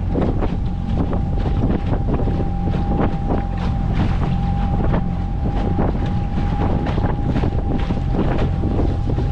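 Small outboard motor running steadily under power, with a steady hum over its low drone. Gusty wind buffets the microphone throughout.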